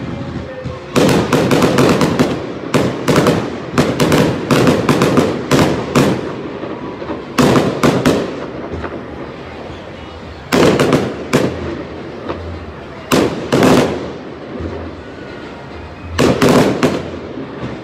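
Aerial fireworks going off in quick runs of sharp bangs and crackles. A long dense run comes in the first several seconds, then shorter clusters every two or three seconds, with brief lulls between.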